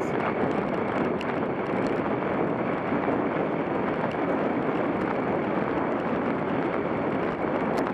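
Steady wind rush over the microphone of a bicycle moving at about 23 mph, an even noise with no breaks.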